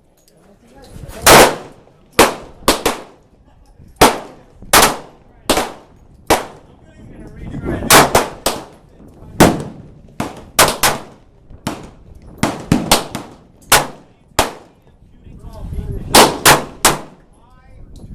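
Gunfire on a shooting range: about two dozen sharp shots at irregular spacing, some in quick clusters of two to four, as from several guns firing on the line at once.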